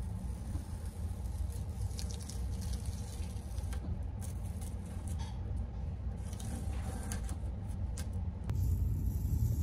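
Blue painter's tape being peeled off painted wood, giving faint, scattered crackles and squeaks over a steady low rumble.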